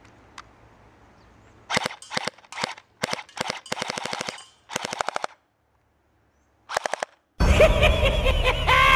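Cyma HK USP Tactical electric airsoft pistol firing in rapid bursts, each a fast string of sharp clicks, with short pauses between bursts. Electronic music starts near the end.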